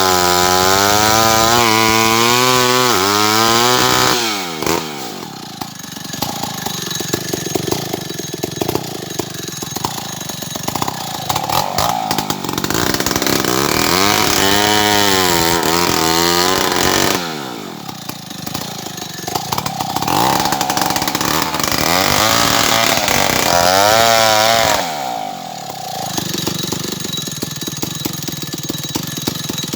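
Stihl 070 two-stroke chainsaw running at high revs, dropping back toward idle about four seconds in, about seventeen seconds in and again about twenty-five seconds in, and revving back up in between.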